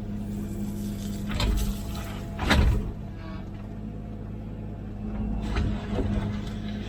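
Komatsu PC16 mini excavator's diesel engine running steadily while digging, with a few sharp clunks from the bucket and arm. The loudest comes about two and a half seconds in, and two more come near the end.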